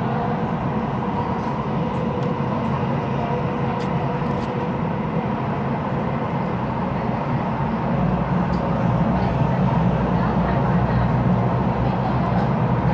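Singapore Downtown Line metro train running at speed through a tunnel: a steady rumble of wheels on rail with a faint steady whine, growing a little louder about eight seconds in.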